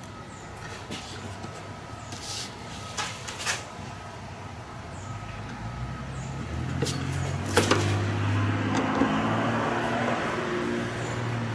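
A few light clicks and knocks of handling, then about halfway a power drill runs steadily, driving a screw into a pilot hole in wood.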